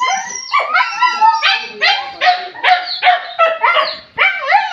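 Hunting dogs barking and yelping in quick succession, about three high-pitched yelps a second.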